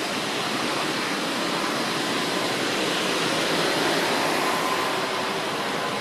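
Steady rushing of a mountain river flowing past.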